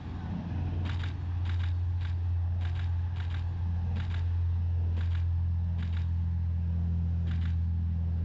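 Deep steady rumble of a 52-foot Spencer sportfish yacht's diesel engines running at speed, growing louder about a second in. A camera shutter clicks about ten times at irregular intervals over it.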